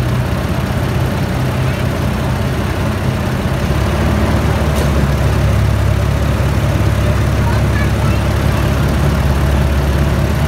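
Miniature park train running along its track, heard from aboard: a steady low engine rumble with running noise over it, and a single short click about five seconds in.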